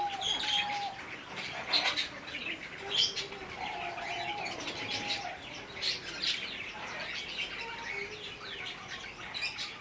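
Wild songbirds chirping and singing together, many short calls overlapping, with a lower held note about four seconds in.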